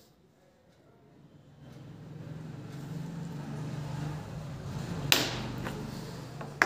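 A plastic marker knocks sharply against a wooden tabletop about five seconds in, with a second click near the end as the markers are handled. A low steady hum swells up underneath from about two seconds in.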